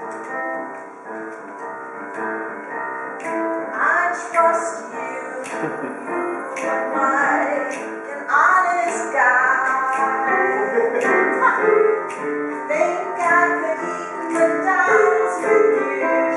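A woman singing an improvised show tune over steady instrumental accompaniment.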